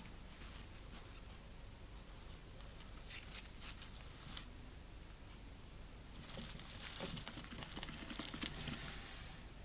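Gerbils squeaking: short high chirps that slide downward in pitch, a cluster about three seconds in and another around six to eight seconds in, with rustling in the bedding.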